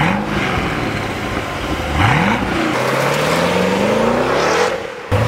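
Twin-turbo 427 V8 of a Lingenfelter Corvette revving hard: a quick rev at the start and another about two seconds in, then a long rising pull as the car accelerates, which drops away near the end.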